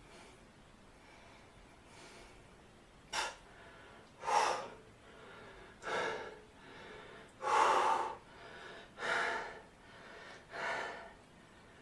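A man breathing hard through his mouth after holding bodybuilding poses: about six loud breaths, one every second and a half or so, starting about three seconds in.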